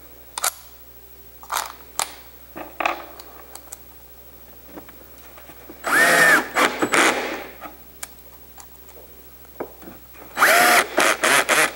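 Cordless drill running in two bursts of about a second each, about six seconds in and again near the end, as it works into the plywood roof panel. Light clicks and taps of handling come before the first burst.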